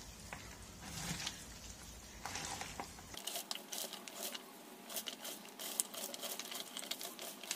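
Hands squeezing and tossing shredded fresh cabbage mixed with wet sauerkraut: a faint, irregular crunching and rustling of the shreds. The crackles grow denser about three seconds in.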